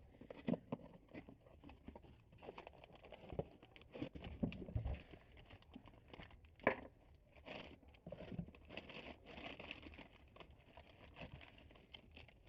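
Irregular handling noises from unpacking a cylinder kit: packaging rustling and crinkling, with light knocks and clicks of parts being moved. The sharpest click comes a little past halfway.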